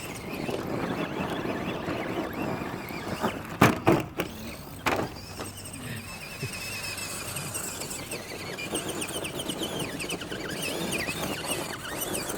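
Radio-controlled rock crawler driving over rocks, its electric motor and gears whirring. A few sharp knocks come about three and a half to five seconds in.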